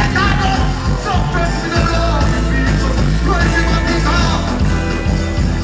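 Loud live dancehall music through a stage PA system: a heavy, steady bass line with the deejay's voice chanting over it.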